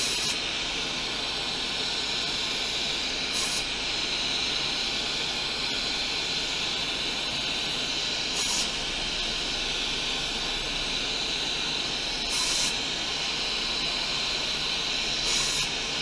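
Hot air rework station blowing with a steady hiss, while a can of compressed air gives five short blasts a few seconds apart. The blasts clear molten solder out of the through-holes of a removed power connector.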